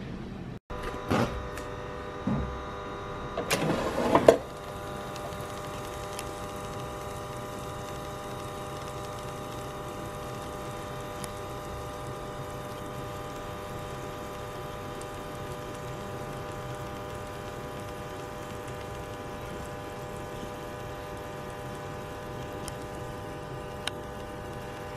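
Air fryer's fan motor running with a steady, even hum of several held tones. In the first few seconds it is broken by a few loud clattering knocks.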